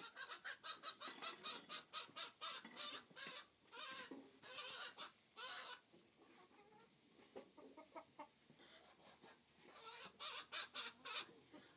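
Chickens clucking in quick runs of short calls, falling quieter in the middle and picking up again near the end.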